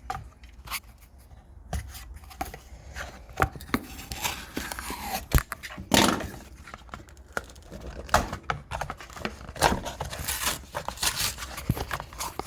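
Hands opening the retail package of an oil filter wrench: irregular tearing, crinkling and scraping of the packaging, with sharp clicks throughout.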